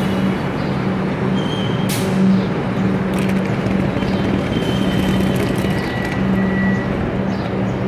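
Electric suburban train pulling in and coming to a stand at a station platform, with a steady low hum and one sharp clunk about two seconds in.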